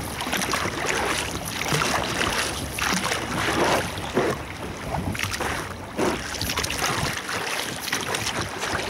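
Motorboat under way at speed: water rushing past the hull and wind buffeting the microphone in uneven surges, over the boat's motor.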